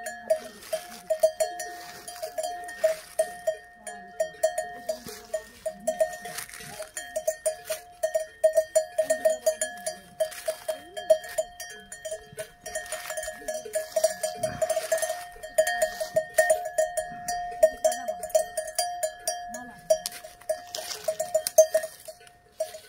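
Metal bell on a grazing cow's collar clanking in quick, irregular strokes as she crops grass, with soft rustling of the vegetation between the clanks.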